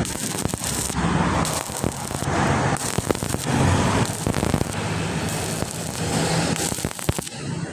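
Electric arc welding: the arc crackles and sputters in several short runs of about a second each, with a steady low hum underneath.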